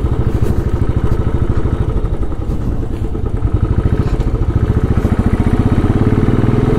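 Motorcycle engine running at low revs, a fast, even beat of firing pulses that grows louder and more distinct about four seconds in.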